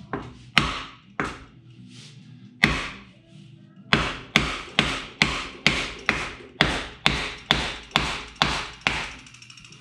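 Hammer blows on a wood block set against a rust-stuck piston of a 1944 Ford flathead V8, knocking it down the bore to free the seized engine. Three spaced blows, then a steady run of about a dozen, roughly two a second.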